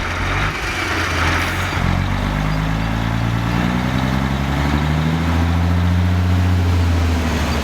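Car engine accelerating, its pitch rising for a few seconds and then holding steady, as in a road-speed test that the fitted speed limiter caps the vehicle at its set maximum.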